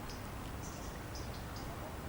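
A small bird chirping in short, quick high notes that come in a few brief clusters, over a steady low rumble.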